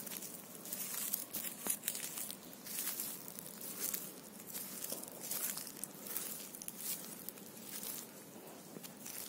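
Footsteps crunching through dry fallen leaves, a crinkling crunch at each step, repeating at a walking pace.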